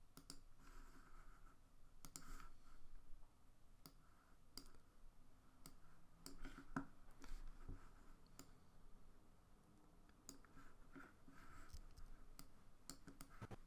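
Faint, irregular computer mouse clicks, a dozen or so scattered sharp clicks over quiet room tone.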